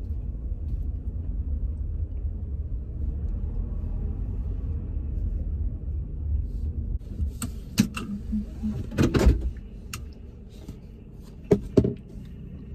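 Low road and engine rumble heard from inside a moving car's cabin, dropping somewhat about ten seconds in, with a few short clicks and knocks in the second half.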